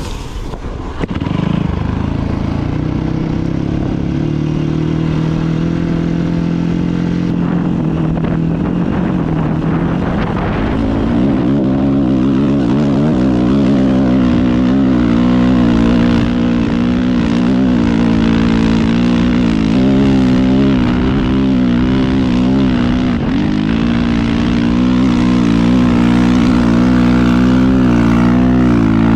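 Dirt bike engine running while riding. Its pitch holds fairly steady for about the first ten seconds, then rises and falls as the throttle is worked.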